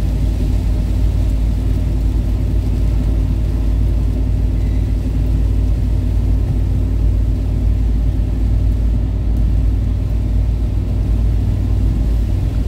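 Steady low in-cabin rumble of a Toyota Kijang LGX cruising on the highway: engine and tyres running on a wet road in heavy rain.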